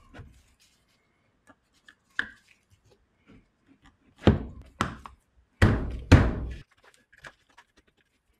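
Handling thunks and knocks as the stainless-steel Aquor hydrant body is pushed into its PVC wall mounting block: a sharp knock about two seconds in, then a run of loud thuds in the middle, with small clicks between.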